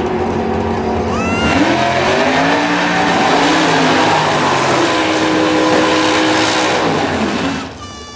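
A 565-cubic-inch Dart-block V8 in a drag-racing Vauxhall Cavalier, revving hard through a burnout with the tyres spinning. The revs climb and swing in the first seconds, are held high and steady, then drop away near the end.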